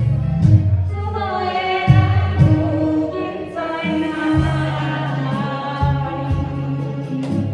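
Singing over a karaoke backing track: a vocal holds two long notes over a band with a steady bass line.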